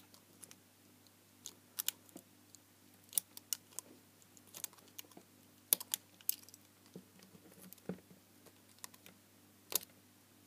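Irregular small clicks, scrapes and cracks of a precision screwdriver tip picking and prying at hardened white waterproofing compound around the LED reflectors inside a 3 W LED garden spotlight housing.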